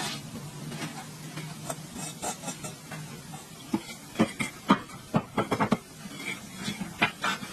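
Irregular sharp clicks and light knocks, like small hard parts being handled and tapped, thickest in the second half, over a low steady hum that fades in the first few seconds.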